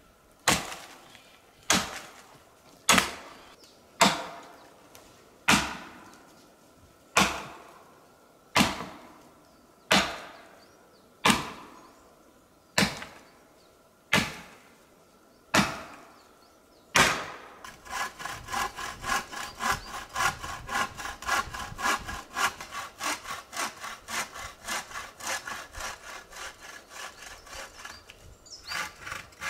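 Small axe chopping into a fallen log, thirteen sharp blows about one to one and a half seconds apart. About seventeen seconds in, a hand saw takes over, cutting through wood with quick back-and-forth strokes.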